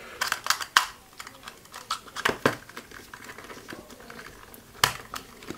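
Irregular small clicks and taps of a metal mint tin, plastic battery box and slide switch being handled and fitted together by hand, with a few sharper clicks spread through.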